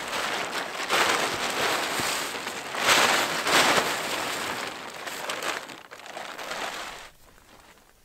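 Blue plastic tarp being unfolded and shaken out, crinkling and rustling loudly; the rustling dies away about seven seconds in.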